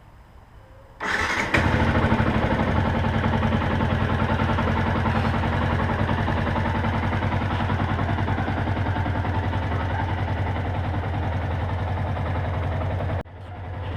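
Yamaha YZF-R125's single-cylinder four-stroke engine on its stock exhaust being started warm: a brief whir of the starter about a second in, the engine catching half a second later and then idling steadily. The sound drops out abruptly near the end and comes back.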